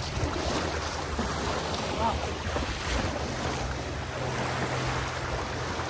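Steady low hum of a boat's motor running, with wind on the microphone and water washing around.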